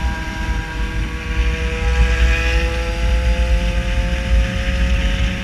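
Yamaha XJ6 motorcycle's 600 cc inline-four engine running under way, its pitch rising slowly and steadily as it gathers speed, over a strong low rumble.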